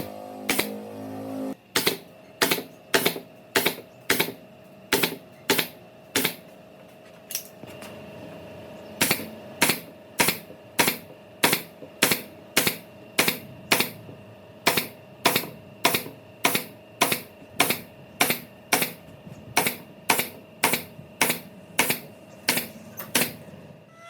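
Sharp taps or strikes repeated at an even pace, about two a second, with a short break about a third of the way through.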